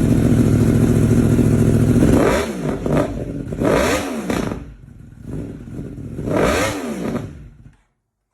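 Yamaha YZF-R1's crossplane inline-four exhaust held at steady high revs, then dropping back and blipped three times, each rev rising and falling, before the sound cuts off near the end.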